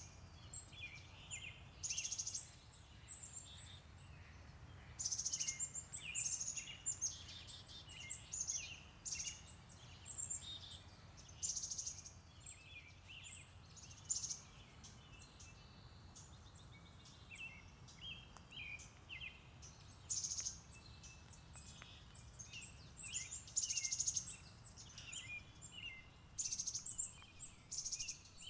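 Several songbirds singing and calling over one another, short phrases coming every second or so, like a spring morning chorus. A faint steady low rumble lies beneath.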